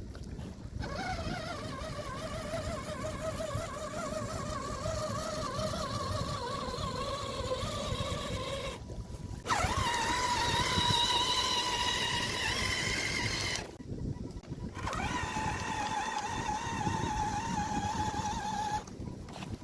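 Small electric motor of a radio-controlled boat whining as it runs, its pitch wavering, with several brief dropouts; after the first dropout, about nine seconds in, the whine is higher.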